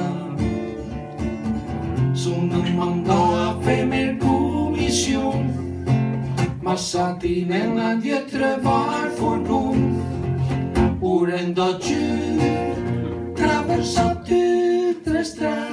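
Acoustic guitar strummed while a man sings into a microphone, a live folk-style song.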